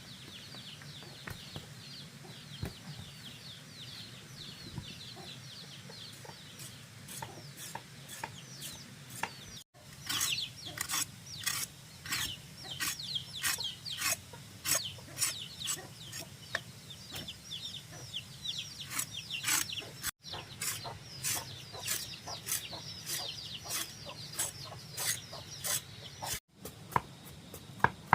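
Chickens cheeping and clucking in many short, high, falling chirps. From about ten seconds in, sharp scraping strokes repeat at about two a second.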